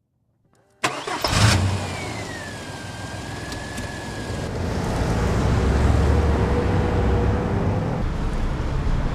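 A car starting up: a sudden loud burst about a second in, a falling whine, then a steady low engine and road rumble that grows louder as the car gets going.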